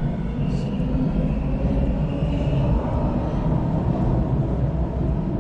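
Subway train running in the station: a loud, steady low rumble with a faint high whine over it in the first few seconds.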